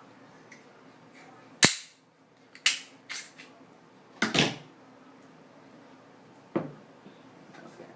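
Springfield XD-S .45 ACP pistol being taken apart: about six sharp metal clicks and clacks from the slide and takedown lever, the loudest about one and a half seconds in and a longer double clack a little past the middle.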